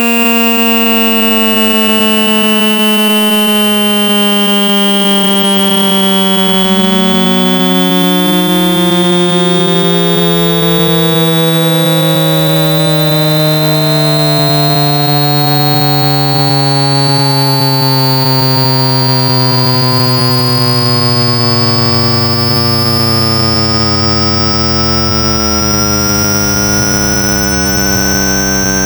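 Electronic speaker-cleaning test tones: a harsh buzzing tone slowly falling in pitch, joined about seven seconds in by a pure tone sweeping steadily upward, with a thin high tone also rising. It is a water-ejection pattern meant to vibrate trapped water and dust out of a phone speaker.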